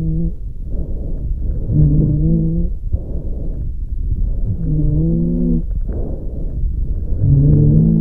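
Expiratory wheeze in recorded lung sounds: a pitched, musical whistle on each breath out, lasting about a second and coming back roughly every two and a half seconds over a steady low rumble of breath noise. An expiratory wheeze is the sign of narrowed lower airways.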